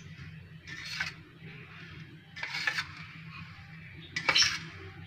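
Metal spatula scraping and turning hot sugar syrup against a steel bowl, three scrapes about a second and a half apart, as the syrup is worked to cool it. A low steady hum runs underneath.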